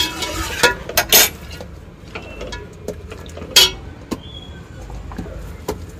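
A metal spoon knocks and scrapes against a cooking pot as chicken is stirred and fried with ginger-garlic paste: a handful of sharp clinks at irregular moments over a low steady hiss.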